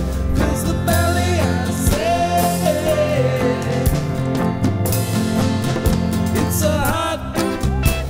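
Background music: a song with a sung voice over a band with drums and bass.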